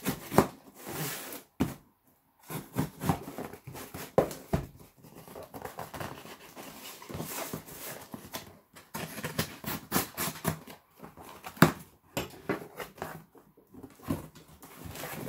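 Cardboard box being opened by hand: a kitchen knife scraping and slicing along the packing tape, cardboard flaps knocking and rubbing, and paper packing rustling, in an irregular run of scrapes and short knocks.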